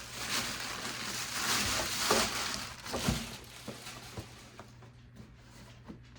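Rustling of packaging as a barbecue tool set is unwrapped and handled, loudest about two seconds in, then a few light clicks and knocks.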